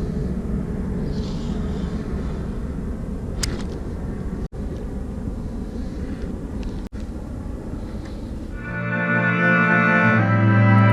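Steady low rumbling noise, broken twice by abrupt cuts. About nine seconds in, background music of sustained organ-like chords begins and grows louder.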